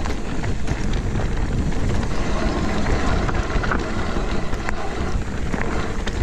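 Mountain bike riding down a dirt trail: wind buffeting the microphone over steady tyre noise, with scattered clicks and rattles from the bike.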